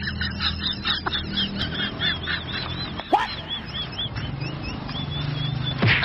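A bird calling over and over in short, high, arched notes, about three a second, over a low steady hum.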